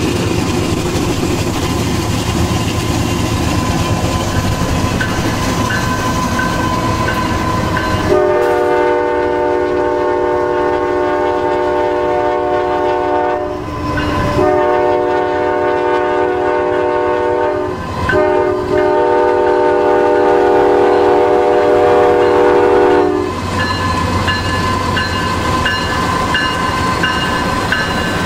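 Norfolk Southern GE Dash 9-40CW diesel locomotive's air horn sounding three long blasts with short breaks between them, over the steady rumble of the locomotive and the train rolling on the rails.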